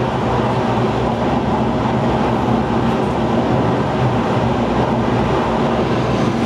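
Twin GE F414 jet engines of an F/A-18 Super Hornet held at full power on the carrier catapult just before the cat shot: a loud, steady rumble.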